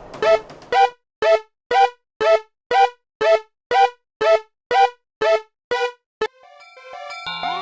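Animated level-crossing warning signal ringing about twice a second in short, clanging pitched tones. It stops about six seconds in, and music with a rising glide starts near the end.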